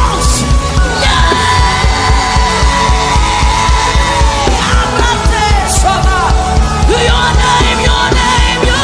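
Live gospel worship music: a band with a fast, steady drum beat and bass under long held notes that slide in pitch, with loud raised voices.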